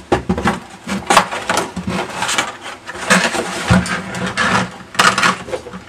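Cardboard box and its packaging insert being handled as headphones are taken out: a busy run of irregular rustles, scrapes and knocks.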